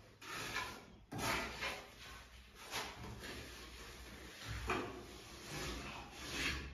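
A plastering trowel scraping across wet cement plaster on a wall in a series of sliding strokes, some long and some short.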